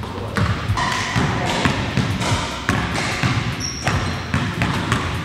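Basketballs bouncing on a hardwood gym court, a run of repeated thuds in a large gymnasium.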